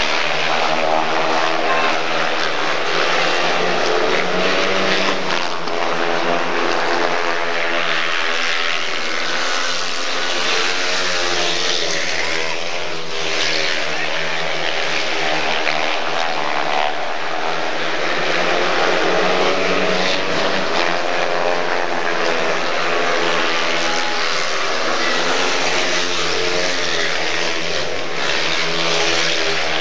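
Four speedway motorcycles racing, their 500cc single-cylinder methanol engines at full throttle. The engine note swells and falls in pitch every few seconds as the riders go round the bends and past the stands.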